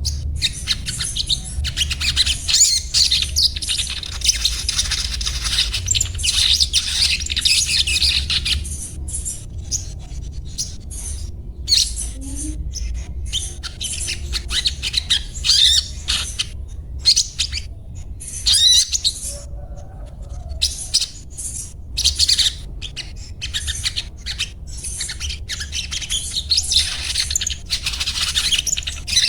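Ruby-cheeked sunbird (sogon) singing a rapid, high-pitched twittering chatter in bursts separated by short pauses, with a steady low hum underneath.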